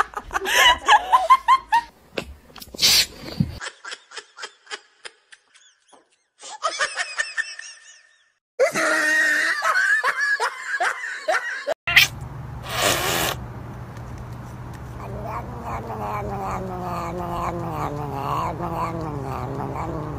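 Several short pet clips run together: people laughing, and a cat vocalizing in drawn-out calls.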